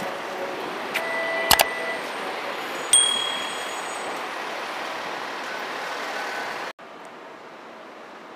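City street ambience with a steady traffic hum. Two sharp clicks come about a second and a half in, and a single bell ding rings out and fades about three seconds in. Near the end the sound cuts abruptly to a quieter street hum.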